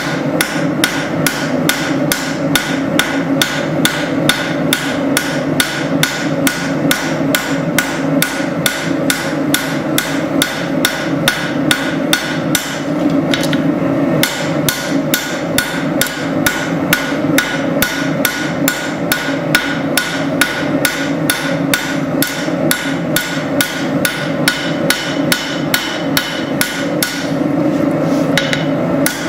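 Hand hammer striking hot spring steel on an anvil as a blade is forged: a steady run of sharp metallic blows, about three a second, broken by two short pauses.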